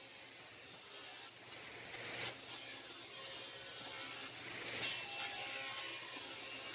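Table saw running and ripping 3/4-inch plywood: a steady motor whine and hum, with louder cutting noise as the board is fed through the blade, about two seconds in and again near five seconds.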